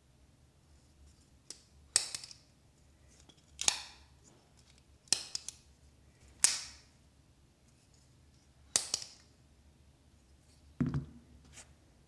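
Vosteed Raccoon folding knife's blade and crossbar lock snapping open and shut: five sharp metallic clicks, a second or two apart. A duller knock follows near the end.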